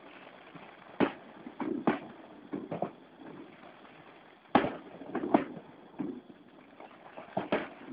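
Fireworks going off: a string of sharp, distant-sounding bangs at irregular intervals, some in quick pairs, the loudest about halfway through and again near the end.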